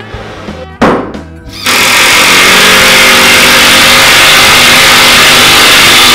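Cordless impact driver driving a screw into plywood: loud continuous hammering that starts about a second and a half in and runs for about five seconds. A single thump about a second in, with background music throughout.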